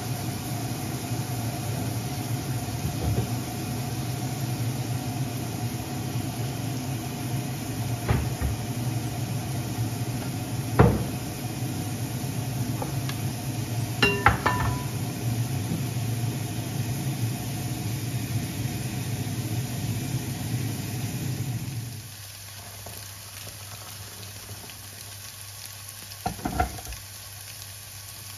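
Tofu frying in a pot, with utensils clinking and knocking against the pan now and then, one clink ringing briefly. A steady low hum runs under the frying and stops abruptly about three-quarters of the way through, leaving the quieter sizzle.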